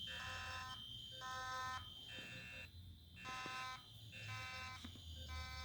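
Several fire alarm horns sounding together, each pulsing on and off about once a second, not in step with one another, over a steady high-pitched tone.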